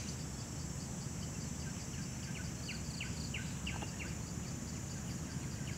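Forest ambience: a steady high insect drone with a fast, regular pulse, over a low steady rumble. Short high bird notes drop in pitch, a few at a time, throughout.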